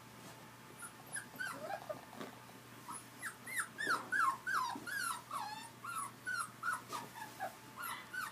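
Liver-and-white English springer spaniel puppies whining and yipping: a string of short, high calls that each fall in pitch. A few come from about a second in, and from about three seconds in they run two or three a second.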